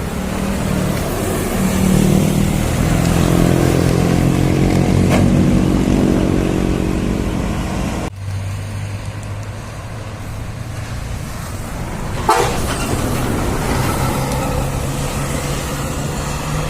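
Large buses' engines running, with a sudden cut about eight seconds in to another bus idling lower and steadier; a short sharp sound comes about twelve seconds in.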